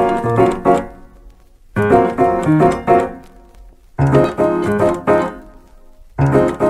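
Background pop music: piano-like keyboard chords in short phrases, a new phrase starting about every two seconds over a low bass note, each one dying away before the next.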